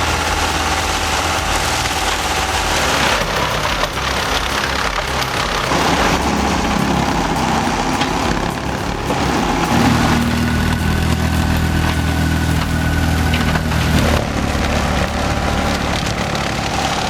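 Engines of heavy forestry machinery running under load, mixed with mechanical noise. The sound changes abruptly every few seconds as one machine's sound gives way to another's.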